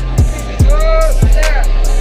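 Background music with a steady hip-hop style beat: deep kick drums that drop in pitch, a held bass, ticking hi-hats, and a melodic line that bends up and down.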